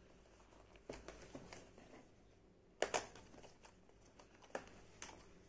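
Small cardboard box being opened by hand: faint rustles and a few sharp clicks of the flaps and packaging, the loudest a snap about three seconds in.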